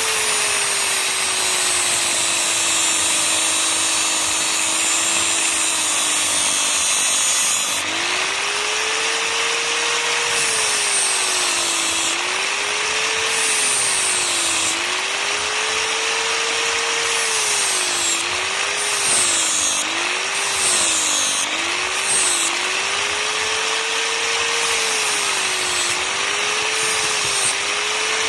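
Electric grinder running against steel, with a hissing rasp over the motor's whine. The motor's note sags each time the work is pressed into the wheel and rises again as the pressure eases: a long slow sag in the first several seconds, then many shorter dips.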